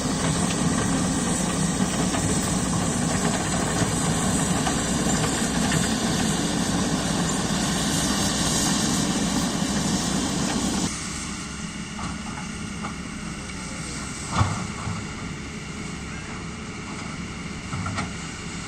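Excavator's diesel engine running hard for about eleven seconds, then dropping to a lower steady run. A sharp knock comes a few seconds later, with a smaller one near the end.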